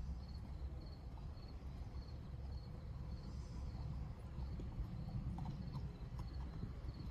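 Hoofbeats of a KWPN warmblood mare cantering on arena sand, heard from a distance over a steady low rumble. A faint high chirp repeats about twice a second.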